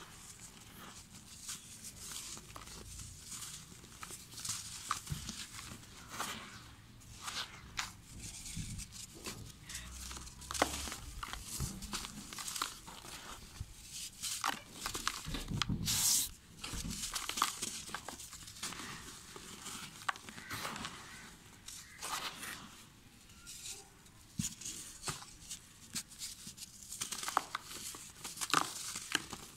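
Dry red dirt blocks crushed and crumbled in bare hands, with irregular gritty crackling as powder and fragments trickle onto loose dirt. A louder crunch comes just past halfway.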